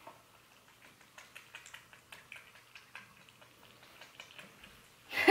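A cat eating from a bowl: a steady run of small, irregular chewing clicks and smacks, with one brief louder sound right at the end.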